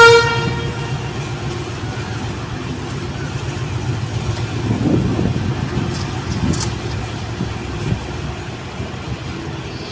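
Indian Railways passenger coaches rolling past on the track: a steady low rumble of wheels with irregular knocks over the rail joints. A train horn's note fades out in the first second.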